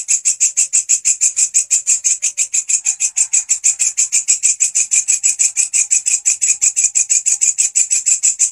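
A walang kecek katydid stridulating loudly: a fast, even train of shrill, high-pitched pulses, about seven a second, running without a break.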